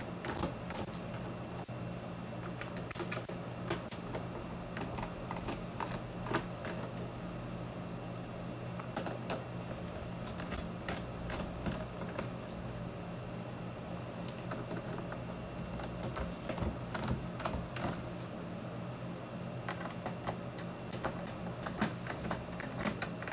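Small Phillips screwdriver backing screws out of a keyboard's plastic case, with irregular small clicks and taps as the board and its loose parts are handled, over a steady low hum.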